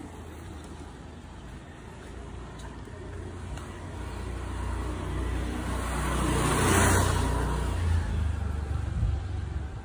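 A road vehicle passing close by, its rumble and tyre noise growing to a peak about seven seconds in and then easing off, over a steady street background.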